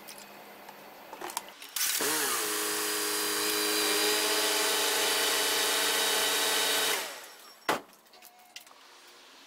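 Mazda Roadster NB6C's 1.6-litre four-cylinder engine started with the radiator cap off during coolant air-bleeding: it catches with a brief flare about two seconds in, runs steadily for about five seconds, then is switched off and dies away. A few small clicks come before it and a single click after.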